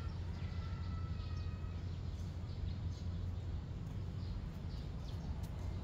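Outdoor ambience: a steady low rumble with faint, brief bird chirps and whistles over it.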